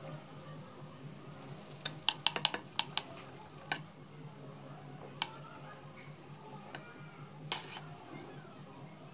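Light clicks and taps from hands rolling modelling clay on a paper-covered tabletop, a quick cluster about two seconds in and a few single ones later, over a faint steady low hum.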